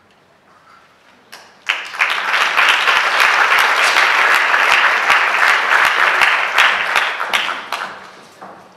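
Audience applauding. It starts suddenly about two seconds in, holds steady and loud, then dies away near the end.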